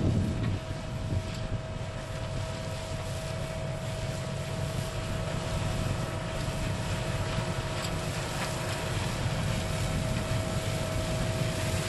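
Vervaet 625 self-propelled sugar beet harvester running as it lifts beet: a steady low machine rumble with a steady high whine above it.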